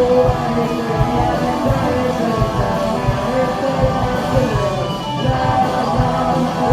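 Live rock band playing loudly: held guitar notes over a steady drum beat.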